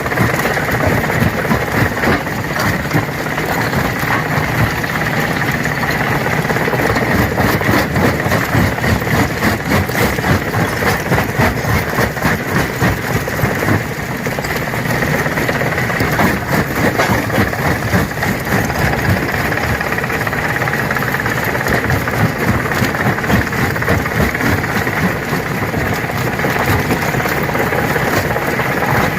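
Stone crusher running under load: a steady machine drone packed with rapid, irregular cracks and knocks of rock being broken.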